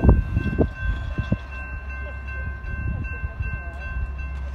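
Railroad crossing warning bell ringing steadily as the crossing signals activate, over a steady low rumble. A few heavy thumps in the first second or so.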